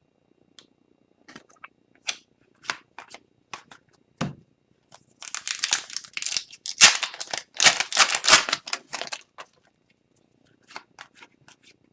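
A trading-card pack's wrapper crinkling and tearing for about four seconds in the middle. Before and after it come scattered light clicks and taps of cards being handled.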